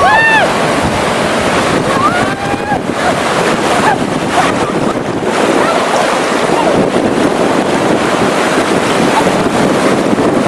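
Surf breaking and washing through the shallows, with wind buffeting the microphone. A woman's voice calls out briefly at the start and again about two seconds in.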